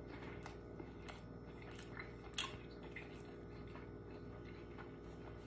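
Faint wet chewing of a mouthful of burger: scattered soft clicks and smacks, the clearest about two and a half seconds in, over a low steady hum.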